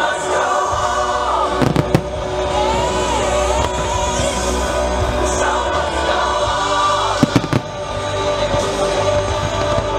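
Fireworks display: sharp bangs of firework bursts, a couple about two seconds in and again about seven seconds in, over steady music with a singing voice.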